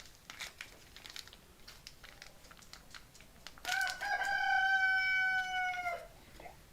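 A rooster crowing once: one long call of about two seconds, starting a little past halfway and dropping slightly in pitch at the end. Faint scattered clicks come before it.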